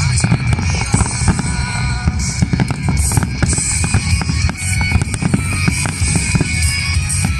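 Rock music with a heavy drum beat, mixed with fireworks bursting and crackling.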